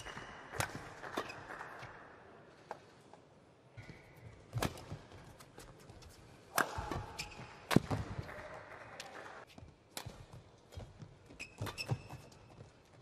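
Badminton rallies: sharp racket strikes on the shuttlecock at irregular intervals, with short squeaks and footfalls of shoes on the court.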